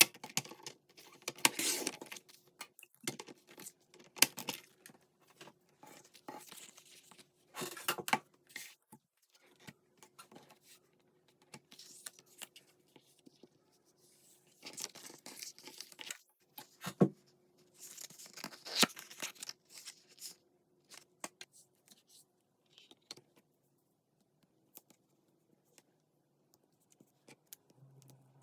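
Paper and cardstock being handled: short irregular rustling and tearing strokes, with small clicks and taps between them.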